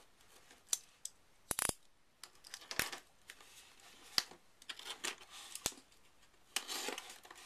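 A snap-off utility knife cutting the tape and cardboard of a shipping box: short scratchy cuts broken by sharp clicks and taps as the knife and box are handled, about half a dozen of them spread through.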